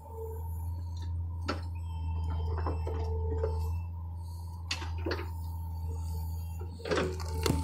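John Deere excavator's diesel engine running with a steady low drone and a whining tone that comes and goes, with scattered knocks and clanks, a cluster of them near the end.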